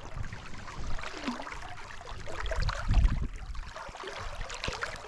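Outdoor river-side noise: running water with gusts of wind buffeting the microphone, and a heavy low thump about three seconds in.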